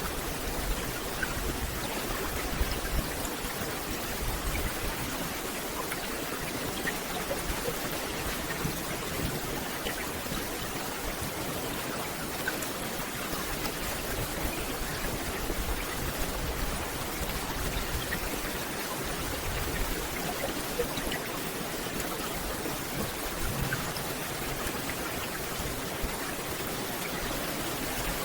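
Steady rain falling on a forest canopy: a constant even hiss with scattered louder drops.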